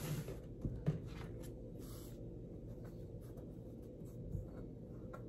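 An acrylic quilting ruler and a fabric quilt block being shifted on a cutting mat: light scrapes, rustles and taps, with a short scraping hiss about two seconds in.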